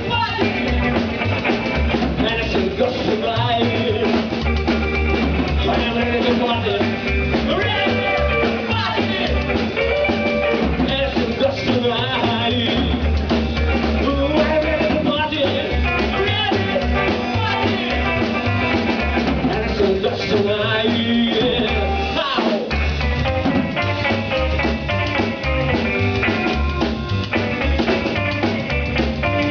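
Loud rock music with a drum kit and singing at times; the bass drops out for a moment about two-thirds of the way through.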